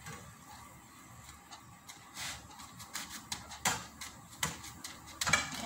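Plastic spatula tapping and scraping against a nonstick frying pan while folding a flatbread: a few sharp clicks and light scrapes, the loudest near the end.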